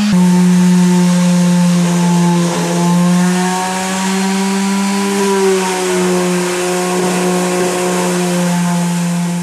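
Electric orbital sheet sander running on wooden panels, a steady motor hum with the rasp of sandpaper on wood; its pitch wavers slightly as it is pushed along.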